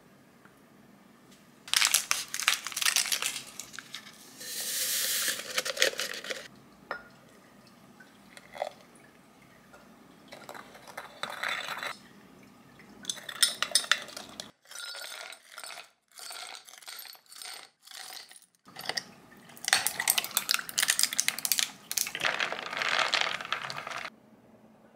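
A long metal spoon stirring a glass of espresso and syrup, clinking rapidly against the glass in several bursts of quick clinks.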